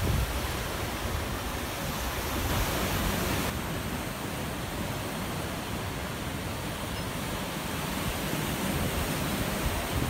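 Surf from a rough sea breaking on a sandy beach, a steady wash of noise, with wind buffeting the microphone now and then, most near the start.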